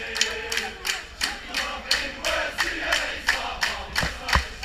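Crowd of protesters chanting in unison while clapping in rhythm, about three claps a second. Two dull knocks near the end.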